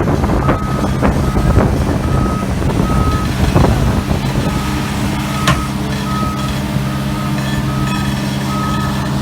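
A heavy machine's reversing alarm beeps about one and a half times a second over its diesel engine running under load. The engine is rough and clattering at first, then settles to a steady drone. There is one sharp metallic clank partway through.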